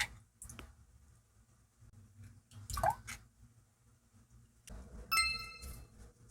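Kitchen cookware and utensil sounds: a few light knocks and clicks, then a sharp clink about five seconds in that rings on briefly, like metal or ceramic struck.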